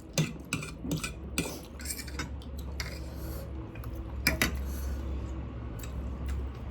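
Eating utensils clinking against a dish as the spicy noodles are eaten: a scatter of sharp clicks, most in the first two seconds, with another a little after four seconds.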